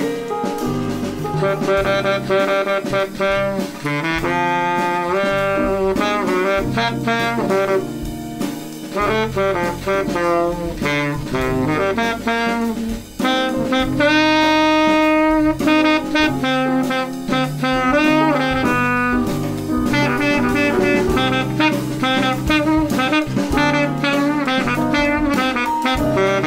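Background jazz music: a horn melody over a drum kit, with a long held note about halfway through.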